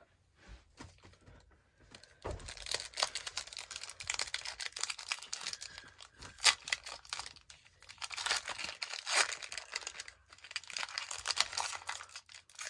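Foil booster-pack wrapper crinkling as it is torn open and handled, with a few faint clicks before the crinkling starts about two seconds in and short pauses along the way.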